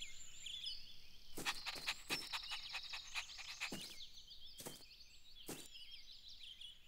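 Faint garden ambience of small birds chirping high and thin, with a few soft clicks scattered through it.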